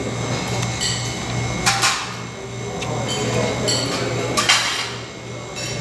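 Clatter of plates and cutlery: several sharp clinks, a few of them ringing briefly, over a steady low hum.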